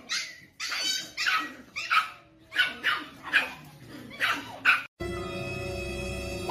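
A dog barking and whining in a string of about ten short calls over five seconds; near the end it cuts off abruptly and music with held tones takes over.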